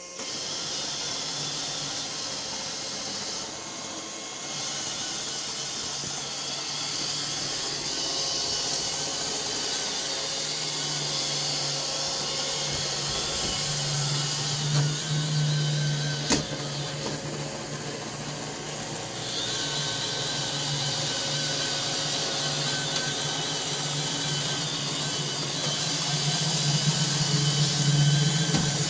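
iRobot Roomba 595 robot vacuum running with a steady whir, its low hum growing louder about halfway through and again near the end. There is a single sharp click about sixteen seconds in.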